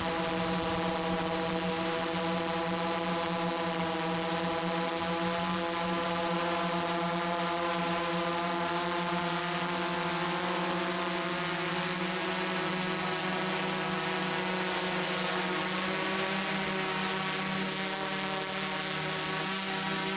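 Electric motor and propeller of an FPV model aircraft droning steadily in flight, heard close up from the onboard camera, with a thin high whine above it. The drone grows rougher in the last few seconds.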